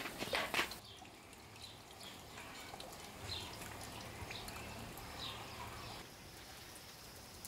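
Liquid splashing and dripping in a bowl for about the first second, then quiet outdoor background with a few faint bird chirps.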